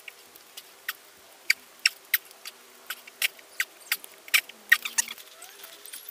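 Quick irregular squeaks and clicks, about two or three a second, from hands, feet and body working against a rubber gym floor mat during repeated push-ups. A faint steady hum runs underneath.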